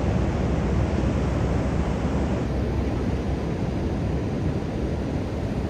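Steady noise of wind and ocean surf, heaviest in the low end, with wind rumbling on the microphone.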